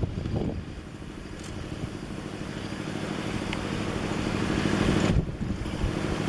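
A motor vehicle's engine running and growing steadily louder as it approaches, then dropping away suddenly about five seconds in.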